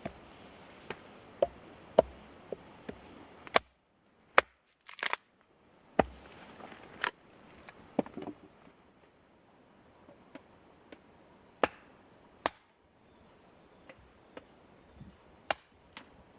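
Sharp cracks and knocks at irregular intervals, a dozen or so, some of them loud, over a faint hiss that comes and goes.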